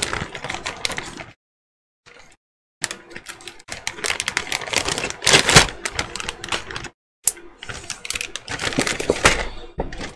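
Clear plastic bags crinkling and plastic sprues clattering as bagged miniature scenery is handled and packed into a cardboard box. It comes in bursts of crackling and clicking, broken by two short silent gaps, with the loudest knock about halfway through.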